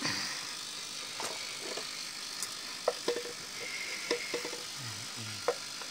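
Scattered light clicks and knocks from hands handling a vintage Philips transistor radio's case and controls, over a steady faint hiss.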